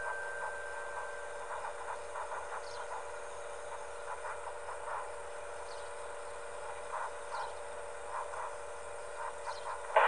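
The last note of a loudspeaker chime dying away in the first second or so, then quiet outdoor morning ambience with scattered short bird chirps over a faint steady hum.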